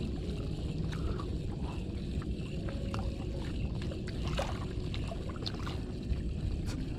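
Steady low rumble of wind and water around a small fishing boat, with a few faint clicks.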